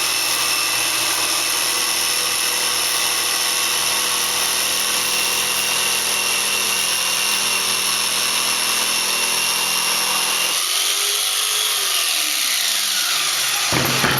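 RIDGID R3100 compact orbital jigsaw running with its orbital action on, sawing through a 2x12 Douglas fir board with a wood blade. About ten seconds in the pitch of the motor shifts, and the saw cuts off abruptly near the end.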